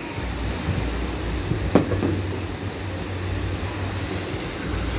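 A distant aerial firework shell bursting with one sharp bang a little under two seconds in, followed by a smaller crack, over a steady low rumble.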